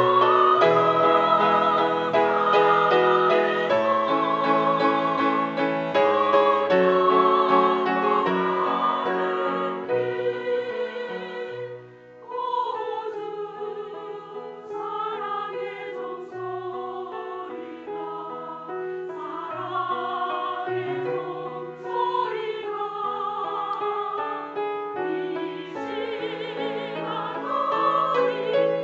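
Women's church choir singing a hymn. The singing is full for the first ten seconds, drops away briefly about twelve seconds in, and then goes on more softly.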